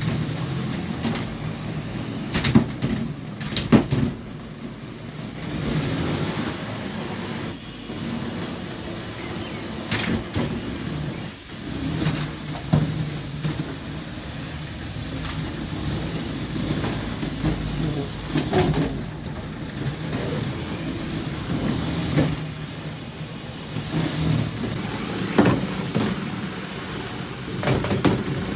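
LEGO combat robots fighting: their electric motors whir steadily, with repeated sharp plastic knocks and clatters as the robots collide.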